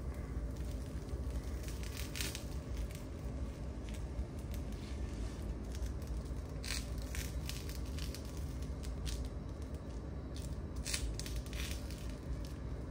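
Silicone spatula scraping under a crisp dosa on a cast-iron tawa, with scattered short scrapes and crackles as the dosa is lifted and folded, over a steady low background hum.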